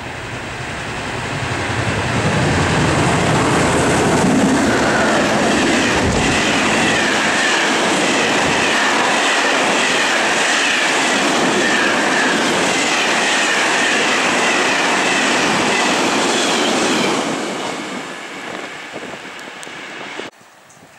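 Container freight train hauled by an FS E.652 'Tigre' electric locomotive passing close at speed. It rises over the first two seconds into a steady loud rumble and clatter of the wagons, with a wavering high wheel squeal over it. It fades as the last wagons go by and cuts off sharply just before the end.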